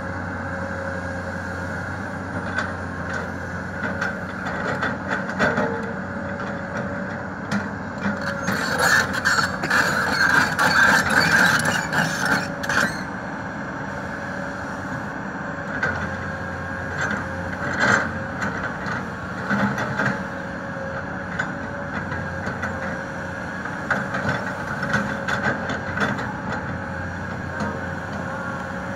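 Komatsu PC200 crawler excavator's diesel engine running steadily under work, with a steady whine over it. About a third of the way in there is a louder stretch of rattling and scraping as the bucket works the ground, and single clanks and knocks come now and then.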